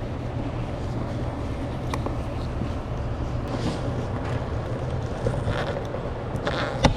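Screwdriver working out the Phillips screws of a car door trim panel, with a few faint scraping sounds and one sharp click near the end, over a steady low hum.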